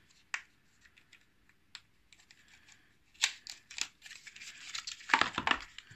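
Small clicks and rustling of plastic packaging being worked open to get at 20700 vape batteries: one sharp click about a third of a second in, then a flurry of clicks and rustles from about three seconds in, busiest near the end.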